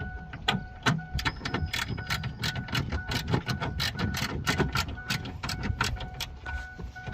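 Irregular metallic clicks and knocks, a few a second, of hand tools working inside a car door to unbolt the power window motor.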